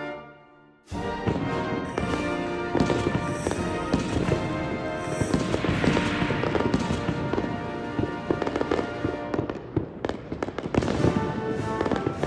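Fireworks going off with irregular sharp bangs and crackling, mixed over a steady background music track. The sound drops away briefly just after the start.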